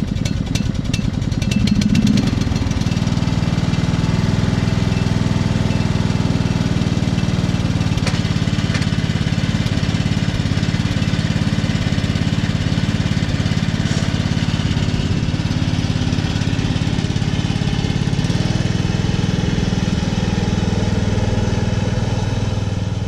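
Riding lawn mower engine running at a steady pitch as the mower drives away, briefly louder about two seconds in.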